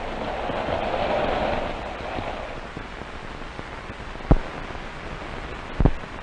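Running-train rumble from an old commercial soundtrack, fading away over the first two seconds or so. It leaves a steady film hiss with two sharp pops in the second half.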